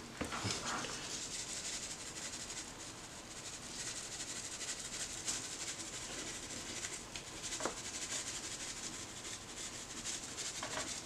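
Dry spice rub of salt, sugar and paprika sprinkled over raw duck skin: a steady, grainy hiss of falling granules, with a few faint taps.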